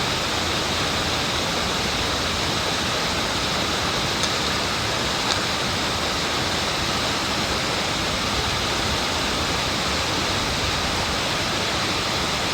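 Changbai Waterfall's water falling and crashing in a steady, unbroken rush.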